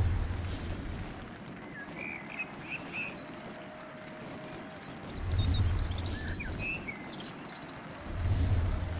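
Outdoor ambience of birds and insects: a high chirp repeating a little under twice a second, with scattered bird calls and low rumbling swells near the start, in the middle and near the end.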